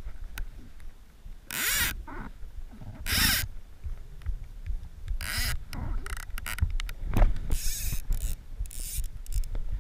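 Fly reel's click-and-pawl ratchet buzzing in about five short bursts as line is pulled off it.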